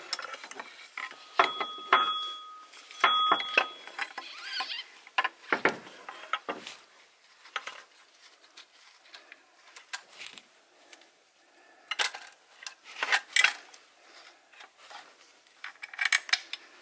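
Irregular metallic clicks, taps and scrapes as a replacement water pump and its bolts are positioned and started by hand on a Toyota 3.5 V6 engine. There are two short high-pitched tones near the start.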